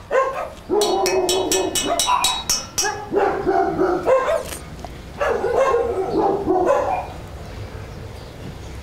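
Dog barking repeatedly, with a fast run of sharp barks during the first few seconds and more barking after.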